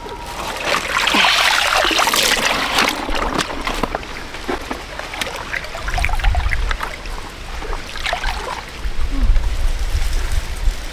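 Water splashing and trickling, with scattered small knocks. A low rumble comes in about six seconds in.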